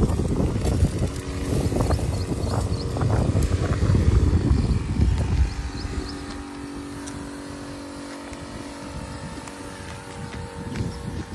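Battery-powered knapsack sprayer's electric pump running with a steady hum while it sprays. For the first five seconds or so, a loud low rumble of wind on the microphone covers it.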